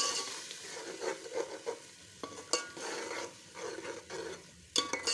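Metal spoon stirring and scraping thick tomato masala as it fries in a steel pot, in repeated strokes. Two sharp clinks of the spoon against the pot, about two and a half seconds in and near the end.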